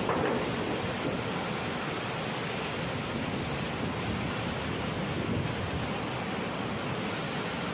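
Steady rush of hurricane wind and surging water, with wind buffeting the microphone.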